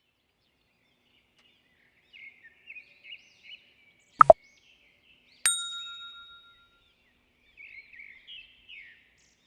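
Intro sound effects: small birds chirping, then two sharp knocks in quick succession about four seconds in, followed by a bell-like ding that rings and fades over about a second. The chirping returns near the end.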